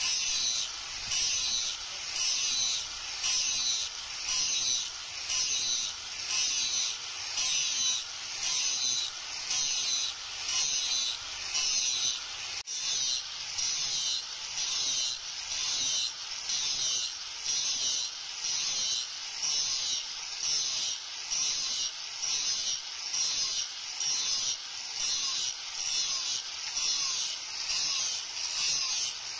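Angle grinder with an abrasive disc grinding a leaf-spring steel knife blade. The grinding swells and eases in even repeated passes, about one every 0.7 seconds.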